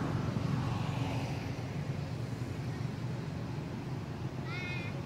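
Steady low rumble of vehicle traffic, with one short high-pitched squeal from a young macaque near the end.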